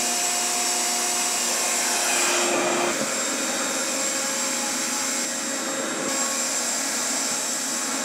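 Revair reverse hair dryer running at turned-down suction, drawing hair into its wand while blowing air through it: a steady rush of air over a motor hum whose pitch changes about three seconds in.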